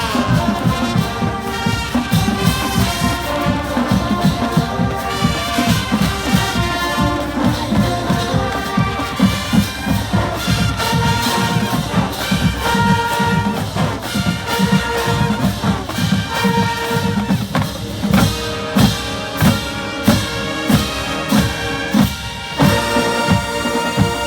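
College marching band playing: trumpets and trombones on sustained chords over a drumline, with heavy, evenly spaced drum beats in the last several seconds.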